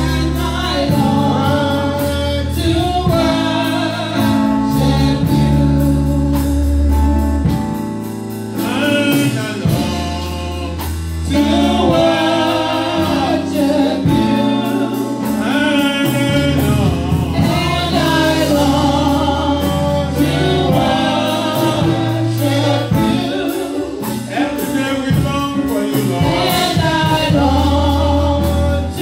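Church praise-and-worship singing: a male lead and a group of female singers on microphones, over an instrumental accompaniment of held low chords.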